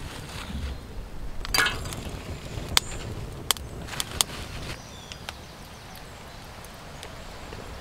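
Lumps of charcoal clinking and knocking as they are dropped into a small metal stove on a burning wood fire: a handful of sharp clinks over a low, steady rush, the last of them about four seconds in.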